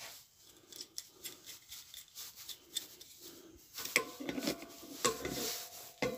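Small clicks and rubbing as a brass gas-bottle adapter is handled on the cylinder valve, then from about four seconds in a steel spanner clinking against the brass hex nut with short metallic rings.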